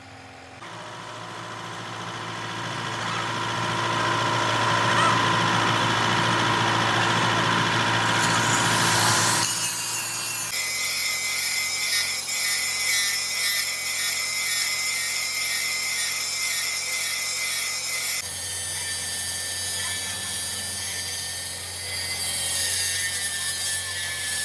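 Power tool running steadily with a whine. The sound changes abruptly about ten and eighteen seconds in, as separate clips are cut together.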